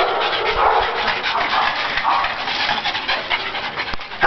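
Pugs playing up close, breathing hard in quick, noisy puffs.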